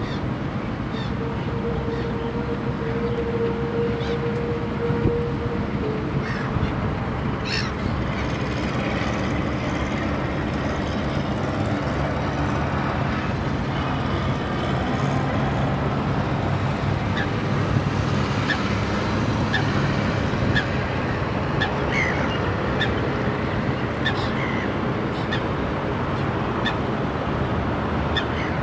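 Steady low vehicle rumble, with a steady tone that stops about six seconds in. Short waterbird calls come now and then through the second half.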